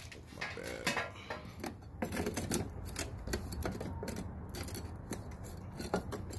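Light, irregular clicks and scrapes of a cut sheet-metal patch being handled and pressed into place against a rusted-out truck quarter panel. There is no tool running.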